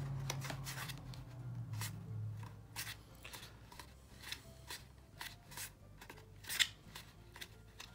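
Cardstock being folded and pressed together by hand into a small glued box: faint scattered rustles and crinkles of paper, with light clicks as the folded edges are pinched tight.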